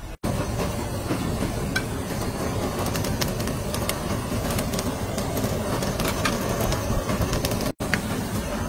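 Handheld kitchen blowtorch flame hissing steadily as it sears nigiri, with a few faint clicks over it. The sound cuts out sharply for an instant just after the start and again near the end.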